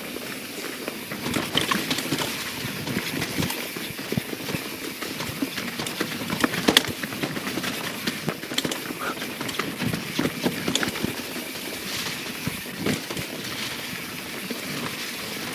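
YT Jeffsy 27 mountain bike riding fast down a dirt and leaf-covered trail: steady tyre and rolling noise with irregular knocks and rattles as it goes over roots and rocks, the sharpest about seven seconds in.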